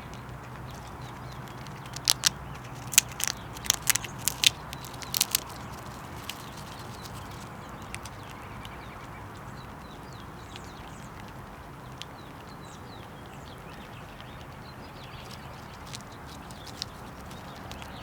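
A squirrel knocking and scrabbling at a bird house feeder while feeding on peanuts: a quick run of about eight sharp taps and knocks over a few seconds, then mostly quiet outdoor background with a low steady hum.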